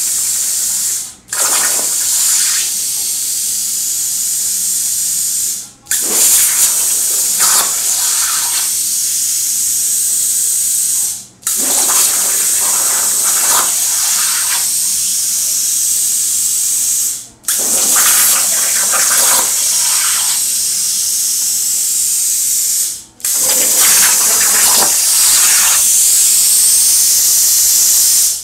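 Hypertherm plasma cutter on a CNC table cutting 16-gauge mild steel: a loud, steady high hiss of the arc. It cuts out briefly five times, about every five to six seconds, as the arc stops between parts and re-fires, sounding rougher for a second or two after each restart.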